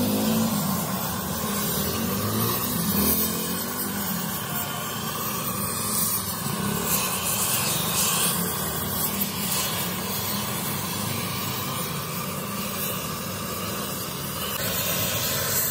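Gas cutting torch hissing steadily as its flame cuts and throws sparks off metal inside a tractor differential housing.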